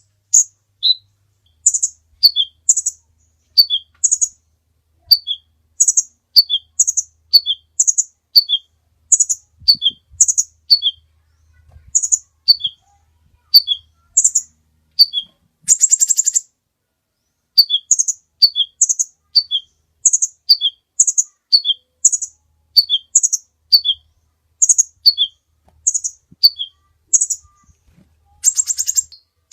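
Kolibri ninja sunbird singing: a long run of sharp, high chirps, mostly in pairs of a high note dropping to a lower one, repeated about every half second. Two short buzzy rattles break the run, one about midway and one near the end.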